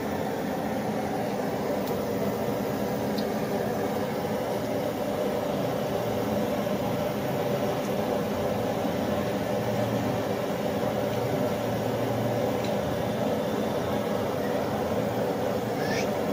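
A steady mechanical hum from a running motor or fan, unchanging throughout, with a couple of faint light clicks.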